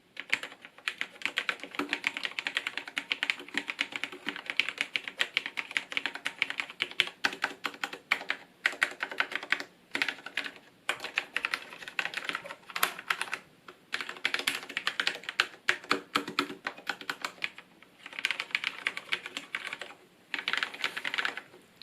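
Fast typing on a Filco Majestouch Stingray NINJA TKL mechanical keyboard with Cherry MX Low Profile Red linear switches: a quiet, dense run of key clicks in several bursts with short pauses between them. The stabilised keys are unlubricated yet sound well damped.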